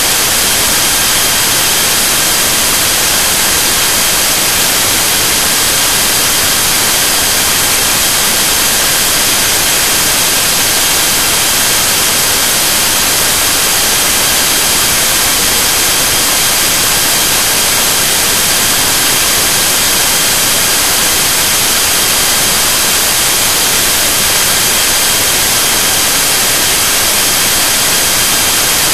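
Loud, steady static hiss that does not change, with a faint high-pitched electronic whine held underneath it.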